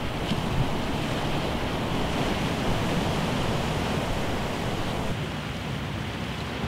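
Sea surf washing against a rocky shore, a steady rushing, with wind buffeting the microphone; it eases a little about five seconds in.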